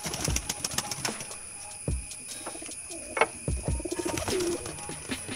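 A pigeon cooing in the middle part, with a few dull low thumps around it.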